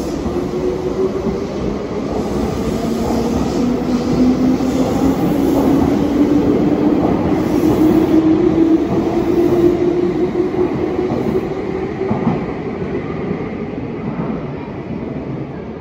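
Meitetsu limited express electric train running out of an underground station platform: its motor whine rises slowly in pitch as it gathers speed, over steady rolling wheel noise that echoes off the station walls. It grows louder, then fades as the train leaves.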